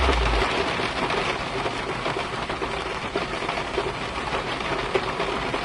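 Steady rain: an even hiss thick with fine drop ticks, keeping a constant level.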